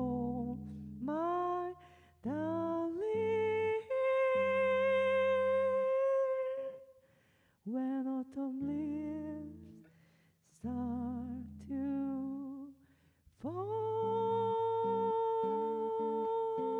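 A woman's wordless singing over her own electric bass: several held notes that scoop up into pitch, some with vibrato, in phrases with short pauses, ending in one long sustained note, while the multi-string electric bass plays low notes underneath.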